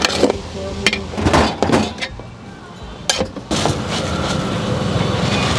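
A ladle clinking and scraping against a large metal cooking pot: several sharp clinks over the first three seconds or so, then a steadier noise until near the end.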